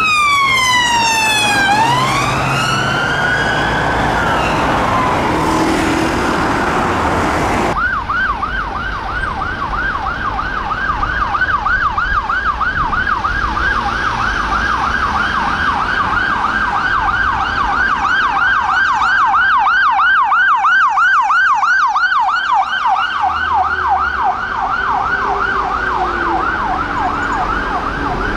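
Unmarked police car sirens. A slow wail glides down and back up until it cuts off abruptly about eight seconds in. Then a rapid yelp sweeps up and down several times a second for the rest, over city traffic.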